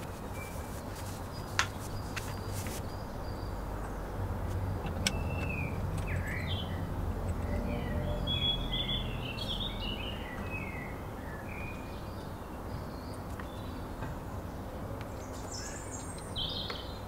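Small birds chirping in short, twittering calls, clustered in the middle and again near the end, over a steady low background rumble. A couple of sharp clicks, one near the start and another a few seconds in.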